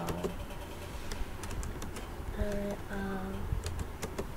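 Computer keyboard typing: a few scattered key clicks in small groups. A voice briefly hums two short steady notes near the middle.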